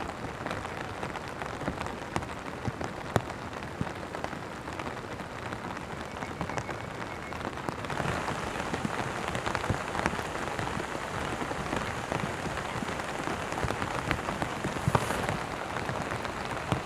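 Steady rain falling, with many sharp drop hits close to the microphone; it grows a little heavier about halfway through.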